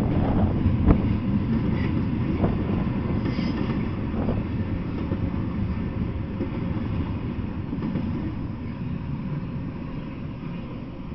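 Double-stack intermodal freight train rolling past, a steady low rumble of steel wheels on the rails with a few sharp clanks in the first few seconds, slowly getting quieter as the last cars go by.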